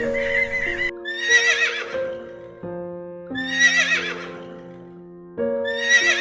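A horse whinnying three times, each neigh a loud, wavering, quavering call a little under a second long, about two and a half seconds apart, over background music. A different repeated animal call cuts off about a second in.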